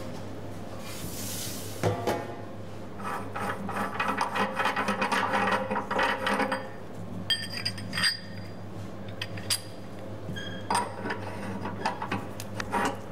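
Bronze pasta die clinking and scraping against the threaded steel head of a pasta extruder as it is handled and fitted on, in a run of rattling clicks and a few ringing metal clinks. A steady low hum runs underneath.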